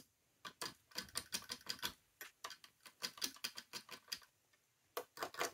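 An irregular run of light plastic clicks and taps, pausing briefly near the end: a LEGO Steve minifigure knocking against the bricks of the set as it is moved about.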